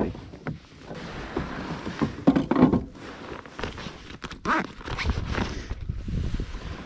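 Handling noises on a plastic fishing kayak: clothing rustling and a few soft knocks as a freshly caught bass and a phone are handled. A low rumble, like wind on the microphone, sets in near the end.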